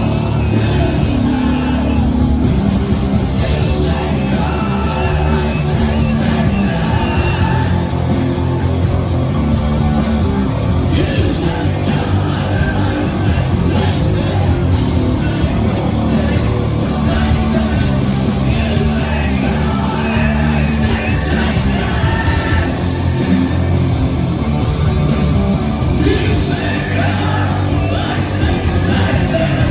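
Rock band playing live and loud, with a singer singing and yelling over the band.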